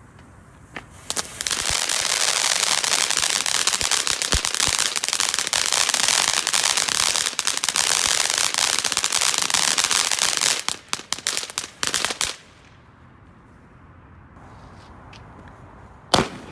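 A consumer firework from a Brothers Pyrotechnics selection box giving a dense, rapid crackle for about nine seconds, which thins into scattered pops and stops. A single sharp bang comes near the end.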